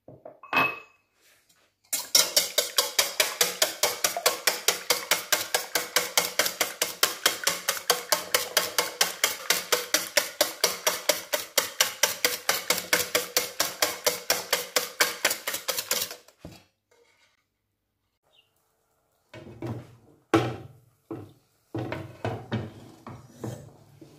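Wire whisk beating eggs in a stainless steel bowl, the wires clinking against the metal in fast, even strokes of about five a second for some fourteen seconds. After a pause come a few irregular knocks and clatters of cookware.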